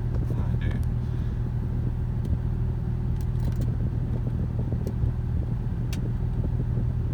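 Car engine idling steadily, a low even hum, with a few faint light clicks over it.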